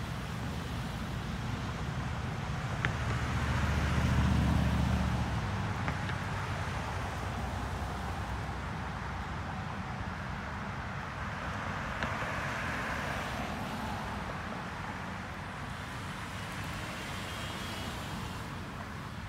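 Road traffic on a wide multi-lane road: cars and SUVs driving past with a steady tyre and engine rush. One vehicle passes close and loudest about three to five seconds in, then the sound settles to a more distant, even hum.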